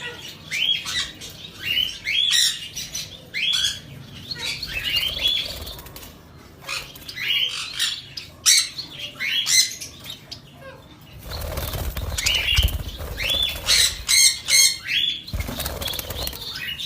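Budgerigars chirping and chattering in many short, rising calls. A low rumble joins partway through and again near the end.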